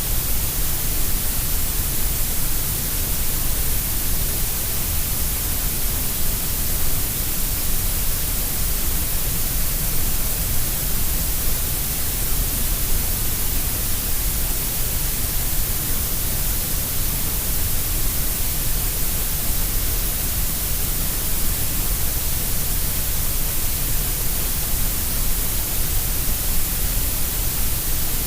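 Grey noise: a steady synthetic hiss shaped to sound equally loud at all pitches, with more energy in the deep lows and the high hiss than in the middle.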